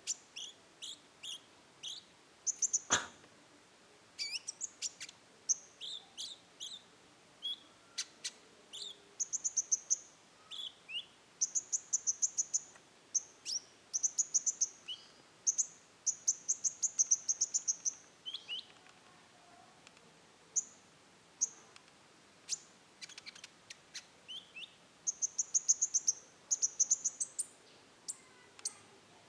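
Kolibri ninja sunbird singing in the 'roll tembak' style: phrases of high, thin chirps and fast trills of repeated notes. A single knock about three seconds in.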